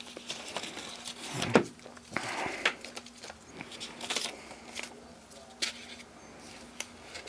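Hands handling paper leaflets and cardboard box packaging: scattered rustles and light taps, the loudest about a second and a half in.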